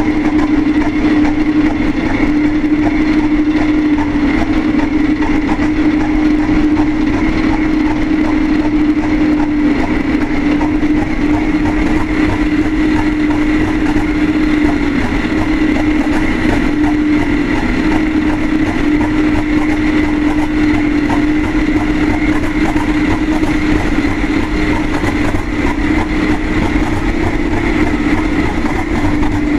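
English Electric V12 diesel engine of a Class 37 locomotive idling steadily just after a cold start, with a steady high whine over its running.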